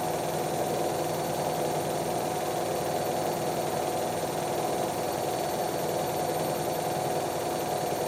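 Hotpoint WD440P and Hoover Nextra washer dryers spinning side by side: a steady whir of motors and drums with a constant hum, holding one speed.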